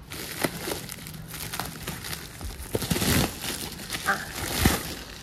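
Bubble wrap rustling and crinkling as hands pull it off a cardboard box, louder about three seconds in and again near the end.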